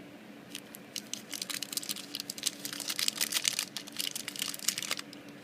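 Crinkling and crackling of the packaging around new replacement lighter flints as it is handled and opened: a dense run of sharp crackles lasting about four seconds.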